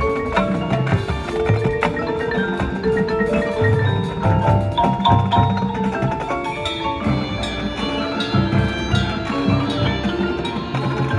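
High school marching band playing a field show, with the front ensemble's mallet percussion (marimbas and glockenspiel) prominent over the drums and held notes.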